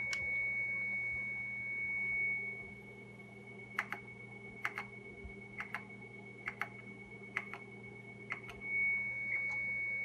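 Star Prentice 103-232 acoustic coupler modem in self-test, sending a steady high-pitched tone that it hears back through its own coupler. The tone drops away for several seconds in the middle while a series of short clicks, mostly in pairs, comes through, then it returns loud near the end.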